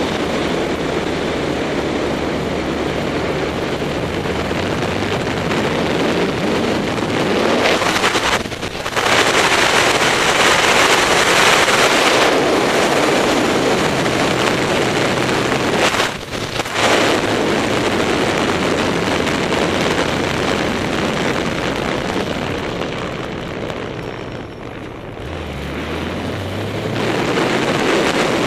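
BMW K-series motorcycle riding at speed: wind rushing over the microphone with the engine running beneath. The rush grows louder for a few seconds after about eight seconds, drops briefly twice (near eight and sixteen seconds) and eases off about twenty-four seconds in, before the engine note rises again.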